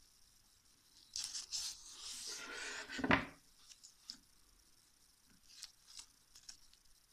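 Florist's stem tape being stretched and wound around a wire flower stem: a crinkly rustle from about one to three seconds in that ends in one sharper crackle, then a few faint ticks as the fingers press and rub the tape.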